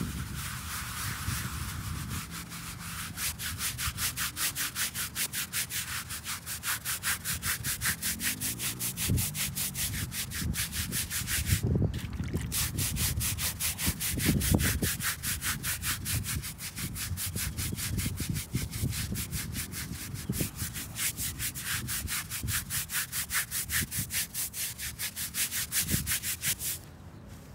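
Stiff bristle scrub brush scrubbing a weathered stone headstone in fast, even back-and-forth strokes, several a second, with scattered low thumps. The scrubbing pauses briefly about twelve seconds in and stops just before the end.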